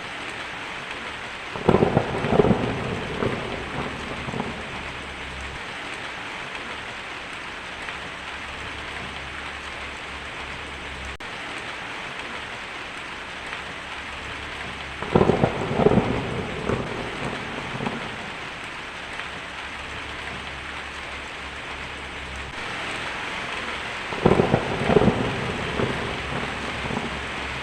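Heavy rain falling steadily on a tin roof, with three peals of thunder: about two seconds in, about fifteen seconds in and near the end, each crackling and rumbling for a couple of seconds.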